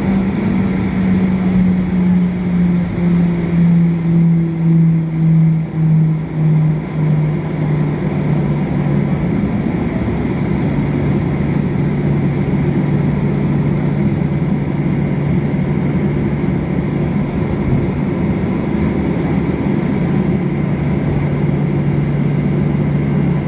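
Boeing 737-800's CFM56-7B jet engines heard from inside the cabin while taxiing: a steady engine hum over a rumble, its pitch dropping over the first several seconds as the engines wind down toward idle, pulsing in loudness while it falls, then holding steady.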